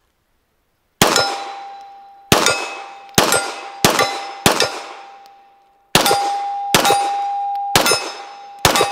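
Sig P320 pistol fired nine times at steel targets, each shot followed by the steel ringing with a single sustained tone. The shots come in a steady string with a short pause about halfway, the gun cycling again after being cleaned and oiled.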